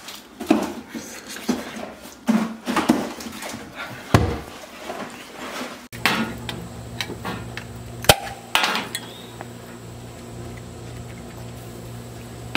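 Scattered clinks and knocks of metal kitchenware, then metal barbecue tongs clacking and knocking, with one sharp click about eight seconds in, over a steady low hum.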